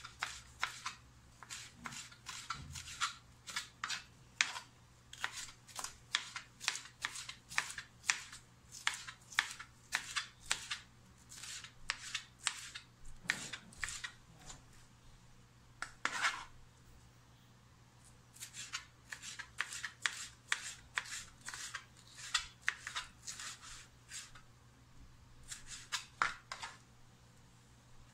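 Kitchen knife slicing bell pepper into thin julienne strips on a plastic cutting board: a steady run of sharp knife taps on the board, about two to three a second, with a short pause a little past halfway.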